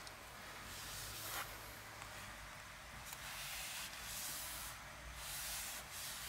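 Microfibre towel rubbing over a car's steering wheel, buffing in a plastic and leather protectant: faint swishing strokes that come and go every second or so.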